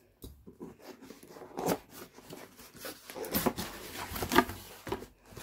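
A cardboard box being pulled open by hand: the lid flaps scrape and rub with irregular rustling and small knocks, the loudest about four seconds in.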